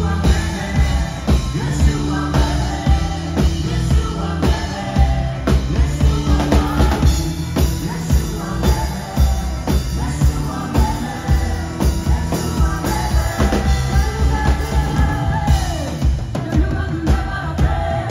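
A live band playing worship music with singing: electric bass, electric guitar, drum kit and keyboards over a steady beat, with a loud, heavy bass line.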